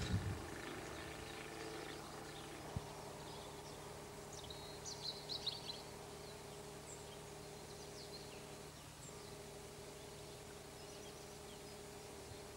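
Faint outdoor ambience with a steady low hum, and a few short high bird chirps about five seconds in. A soft thump at the very start and a single click a little later.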